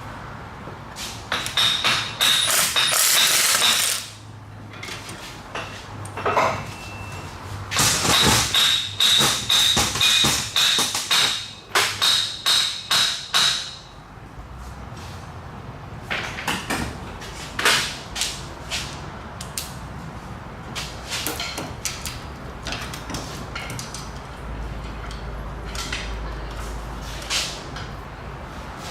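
A power tool run in two bursts of a few seconds each with a steady high whine, the second ending in short pulses, then scattered clinks and knocks of metal tools and parts during exhaust manifold bolt work.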